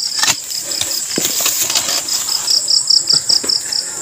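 A cricket chirping in a steady run of high pulses, about five a second, louder in the second half. A few short knocks and scrapes from the digging sound now and then.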